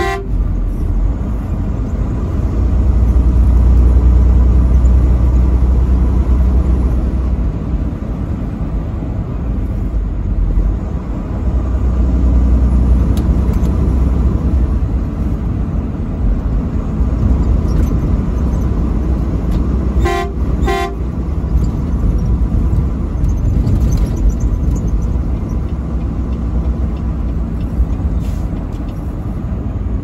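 A truck running at highway speed, with a steady low rumble from the engine and road. The truck's horn sounds in short blasts: one right at the start and two quick ones in a row about two-thirds of the way through.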